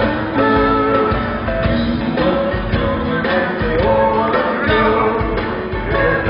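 Live rock band playing in a concert hall, with electric guitars, drums and keyboards, heard from the audience through a phone's microphone.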